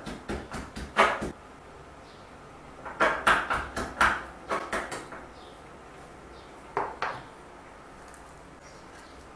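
Garlic and salt being pounded with a wooden pestle in a small wooden mortar: quick knocks about four a second, in two runs with a pause between, then two single knocks a couple of seconds later.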